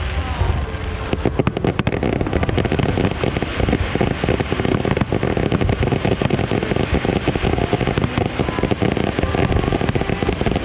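A fireworks display: a rapid, continuous barrage of bursts and crackling pops that thickens about a second in.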